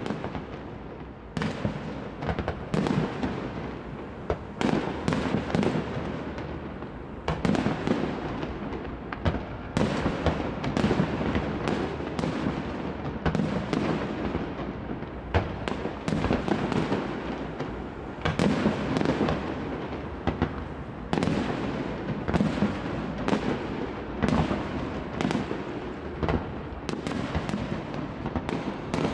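Aerial firework shells bursting in a rapid, irregular series of sharp bangs, sometimes several a second, with a rolling echo between them.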